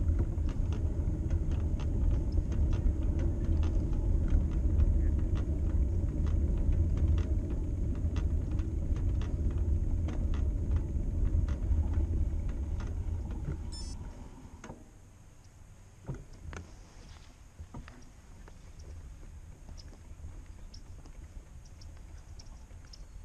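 Riding noise from a bicycle-mounted camera: a heavy low rumble of wind and tyres on paving, with many small rattling clicks. About 14 seconds in it falls away to a much quieter ride with only scattered clicks.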